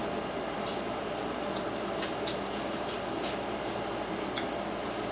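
Close-miked eating of steamed crabs: scattered short mouth smacks and shell clicks, about half a dozen, over a steady background hiss.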